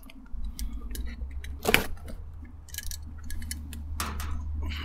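A cardboard box being cut open with a small blade: a series of short, sharp clicks and scrapes as the blade goes through the tape and flaps, the loudest a little under two seconds in.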